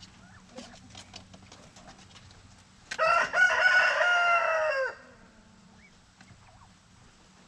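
A rooster crows once, about three seconds in: a single call of about two seconds that holds its pitch and then drops off at the end. Faint scattered ticks and scratches sound around it.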